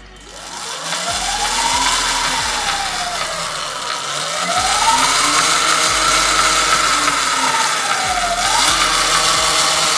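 Surron LBX electric dirt bike's motor and drivetrain revved up and down twice, then held at high revs: a whine rising and falling in pitch over a dense rushing hiss, run up to bring out a ticking that the mechanic traces to rusted, stiff chain links catching on the front sprocket.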